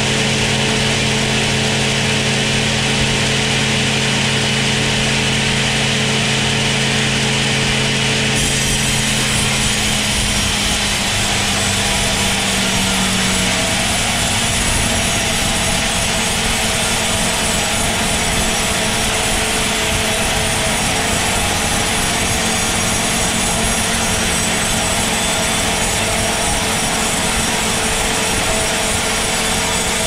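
Large band sawmill cutting through a thick timber block: a loud, steady sawing noise from the blade in the wood. Beneath it runs a low machine hum that fades out about ten to thirteen seconds in.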